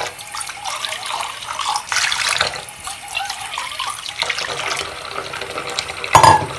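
Tap water running and splashing into a stainless steel bowl and a soapy sink as the bowl is rinsed out. A loud knock about six seconds in.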